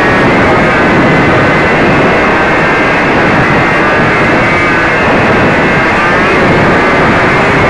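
Radio-controlled model airplane's motor and propeller running, with heavy rushing noise over the microphone; the motor's whine drifts up and down in pitch with the throttle.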